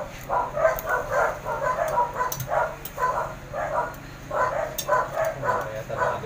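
A dog barking in quick, repeated yaps, about three a second.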